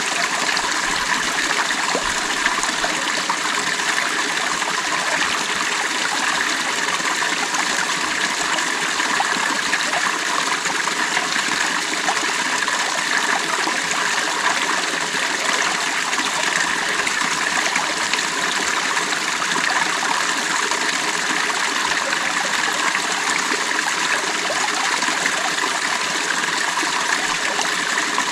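Creek water running over rocks, a steady rushing babble.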